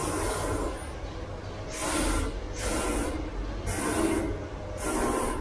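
Fully automatic crystal-pendant making machine running through its cycle: a harsh noisy burst about once a second, over a low steady machine hum.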